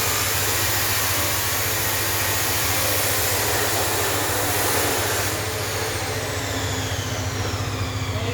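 Chainsaw engine running steadily with a high rushing noise. About five seconds in, the rushing eases and a whine falls slowly in pitch.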